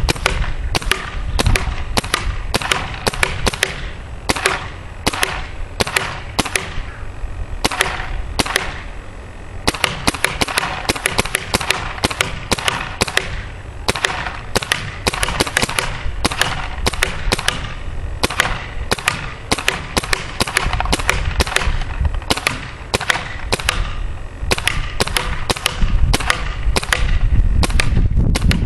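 Empire Mini GS paintball marker firing shot after shot: sharp pops in quick strings of a few a second, with short pauses between strings.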